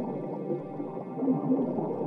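Sound-design soundscape with an underwater feel: muffled, wavering tones that slide up and down in pitch over a gurgling texture.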